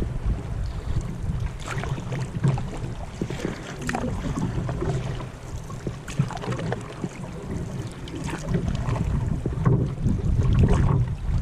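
Wind buffeting the action-camera microphone as a low rumble, with scattered splashes and drips from a paddle working the water.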